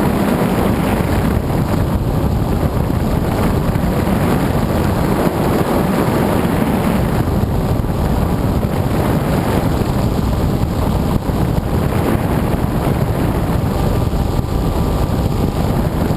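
Steady wind rush over the microphone of an FPV drone in flight, with a faint even hum from its motors. The sound cuts off suddenly at the end.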